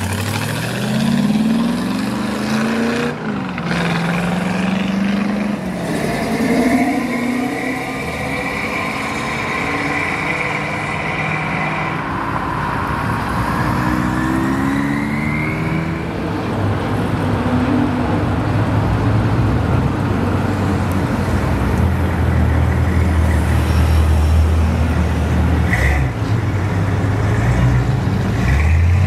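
A hot rod's engine revs up and pulls away, its pitch climbing with a break at each gear change. In the second half another car's engine runs low and steady, then starts to rev up again near the end.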